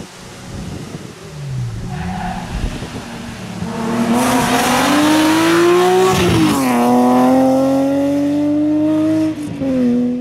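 BMW M3 E36 rally car's straight-six engine at full throttle, its note climbing steadily, dropping sharply about six seconds in, then holding and rising slowly before dropping again near the end.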